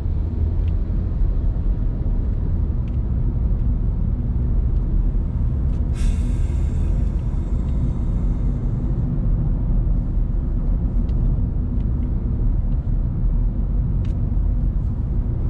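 Road and engine noise inside a moving Honda car's cabin: a steady low rumble. About six seconds in, a hiss starts suddenly and fades away over about three seconds.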